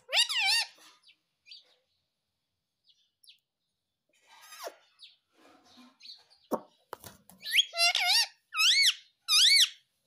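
Rose-ringed parakeet (Indian ringneck) calling: a short, wavering high call at the start, then a quick run of loud, wavering high calls in the last two and a half seconds.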